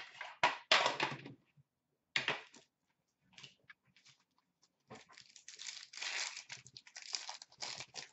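Foil wrappers of Upper Deck hockey card packs crinkling and tearing as packs are handled and ripped open. There are short bursts in the first couple of seconds, then a longer run of crinkling in the second half.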